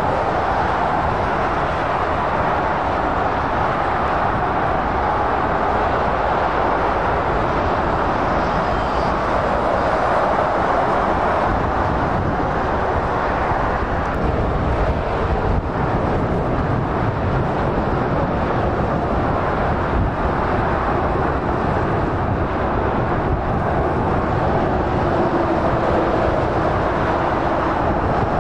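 Steady noise of motorway traffic: tyres and engines of passing lorries and cars.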